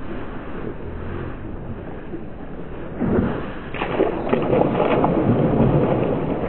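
A giant trevally hitting the sea about three seconds in as it is released over the side of a boat, followed by loud splashing and churning water as it swims off. Before that, only low wind and boat noise.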